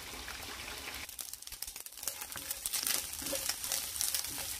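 Spam slices sizzling in a frying pan with a steady hiss. Then, from about two seconds in, dried anchovies crackle and rustle as they dry-fry in their own oil with no added oil and are stirred with a wooden spatula in a nonstick pan.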